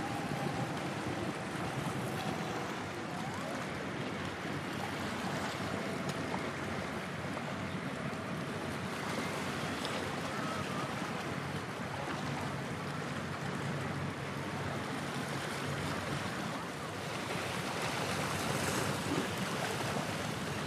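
Steady wind on the microphone and choppy waves on open water, with a faint low hum for a few seconds in the middle.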